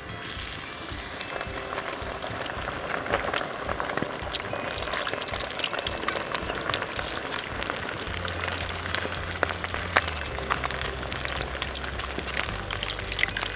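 Whole chicken deep-frying in hot oil in an aluminium pot over a wood fire: dense sizzling and crackling that builds over the first couple of seconds as the chicken goes into the oil, then holds steady. A metal ladle works the chicken in the oil.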